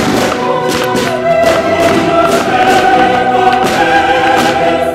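Choral music, voices holding long chords.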